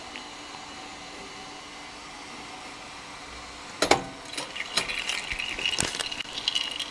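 Faint steady hiss, then about four seconds in a sharp knock followed by a busy run of clicks and scratchy rustling.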